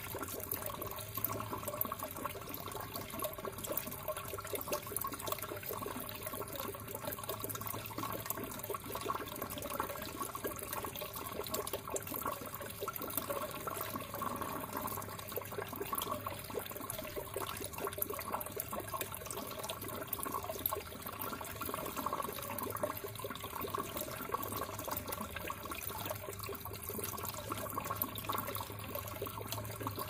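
A stream of water from a pipe pouring steadily into a fish tub, splashing and bubbling at the surface, over a low steady hum.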